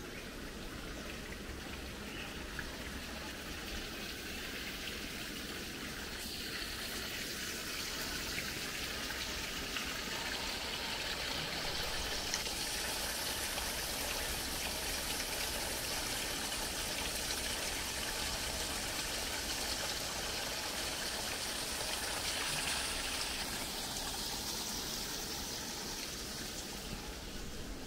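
Running water trickling and splashing, a steady hiss that grows louder over several seconds and then fades again near the end.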